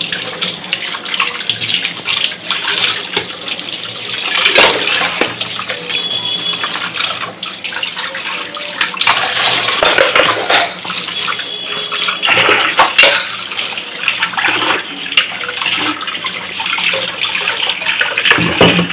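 Kitchen tap running steadily into a stainless steel sink as pots and utensils are rinsed under it, with splashing and scattered clinks of steel dishes.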